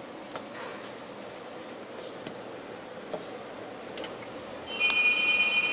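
HP LaserJet P1102 laser printer: a few light clicks of its plastic parts, then about five seconds in a sharp click and a loud high whine at several pitches at once for about a second, as its mechanism starts up.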